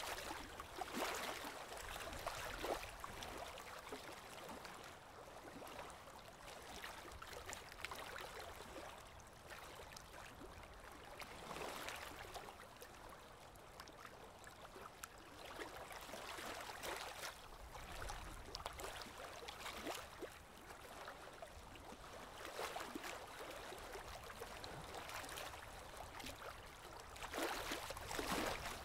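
Soft, uneven rustling of yarn being worked with a crochet hook, with many small ticks from the hook and stitches. It swells and fades every second or two.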